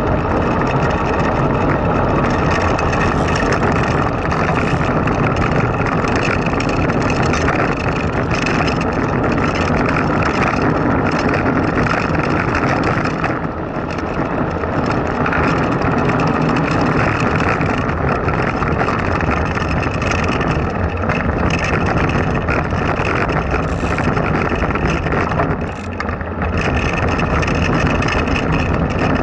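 Blokart land yacht rolling over rough asphalt: a steady rumble and hiss of its small wheels on the tarmac, mixed with wind on the kart-mounted microphone, dipping briefly twice.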